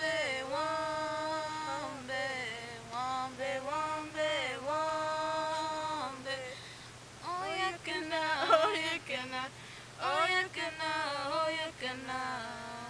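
Two girls singing a Kumeyaay peon (hand game) song unaccompanied, in long held notes that bend from pitch to pitch; the singing gets louder and busier about halfway through.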